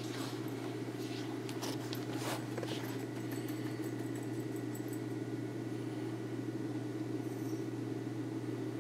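Steady low electrical hum of a small reef aquarium's running pumps, with a few light clicks in the first couple of seconds.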